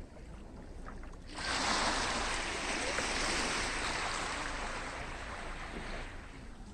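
Sea waves washing onto a beach. A wave breaks about a second and a half in, and its wash hisses for several seconds before fading.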